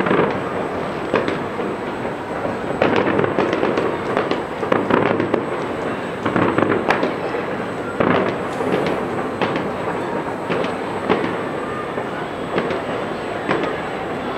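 New Year fireworks going off: a continuous rumble and crackle of bangs, with louder reports every second or so.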